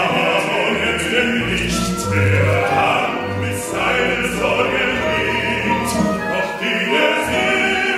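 Modern opera music: several voices singing together over an instrumental ensemble, with low bass notes that change every second or so.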